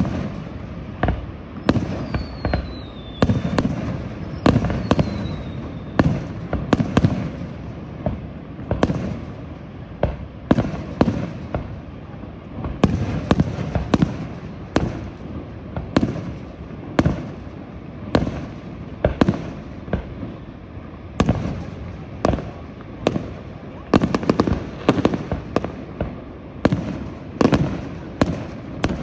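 Aerial fireworks display: a continuous, irregular barrage of shell bursts, bangs and crackles, about one or two a second. Two short whistles fall in pitch a few seconds in.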